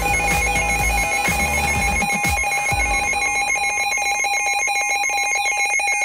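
Weather-alert radio sounding its electronic alert alarm: a fast, pulsing electronic tone at two pitches, set off by an incoming NOAA Weather Radio alert. Background music with a beat fades out about halfway through.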